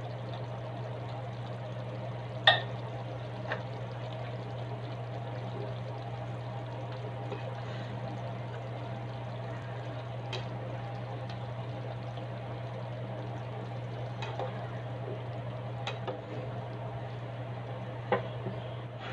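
Pork stew simmering and bubbling in a pan, over a steady low hum. Utensil clinks against the pan come now and then, the sharpest about two and a half seconds in, and a glass lid clinks onto the pan near the end.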